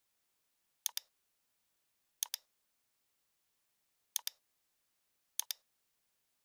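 Computer mouse button clicking four times at irregular intervals, each a crisp double tick, as points are picked in drawing software.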